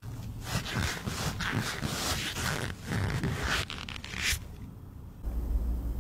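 Close, scratchy rubbing and rustling of a cotton swab working inside a kitten's ear, coming in uneven strokes for about four seconds. A steady low hum follows near the end.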